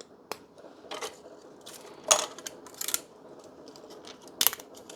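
Support material being snapped and pulled off 3D-printed plastic parts by hand: a string of sharp plastic clicks, cracks and short scraping rasps, the loudest about two seconds in, with small pieces clattering.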